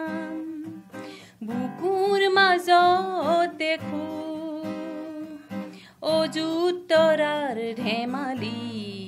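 A woman singing a slow song to acoustic guitar accompaniment, with two long sung phrases over the guitar's steady plucked notes.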